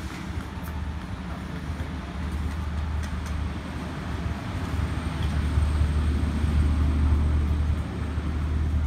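Low, steady rumble of a motor vehicle engine, like road traffic, swelling from about five seconds in and easing near the end as a vehicle goes by.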